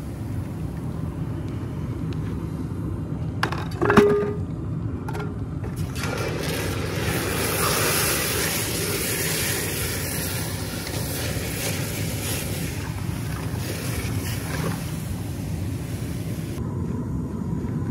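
Hot aluminum casting being quenched in a bucket of water, sizzling steadily as the water boils off it into steam. One sharp clank comes about four seconds in.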